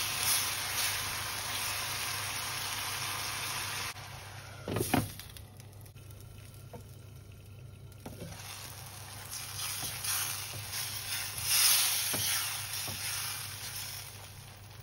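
Crab masala sizzling in a pan while being stirred. The sizzle drops away about four seconds in, a knock against the pan follows just after, and the sizzle builds back up in the second half with a few light clicks.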